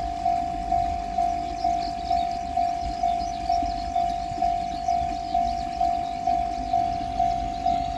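Railroad crossing warning bell ringing in a steady 'kan-kan' beat, about two strikes a second. Beneath it is the low rumble of a train.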